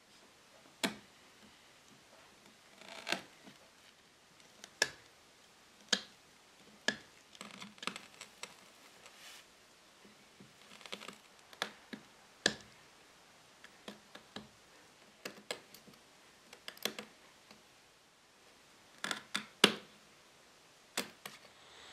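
Hand-tool work on a wooden chair joint: a steel chisel blade tapping and scraping in the gap, with tools picked up and set down. Scattered sharp clicks and short scrapes, the loudest near the end.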